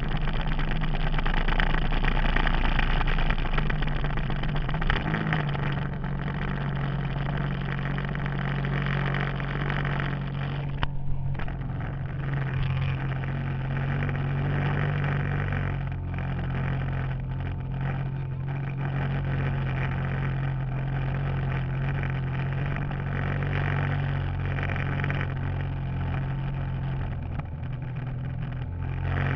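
Yamaha Wave Raider jet ski's two-stroke engine running steadily under way, with the rush of water spray and wind over it. The engine note drops a little about five seconds in.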